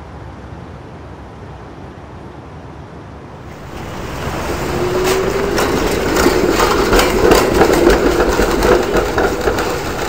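Outdoor street ambience, then an MBTA Green Line light-rail streetcar approaching on its rails from about three and a half seconds in, growing steadily louder. A brief rising whine comes as it nears, followed by a rapid run of clicks and rattles from the wheels and car.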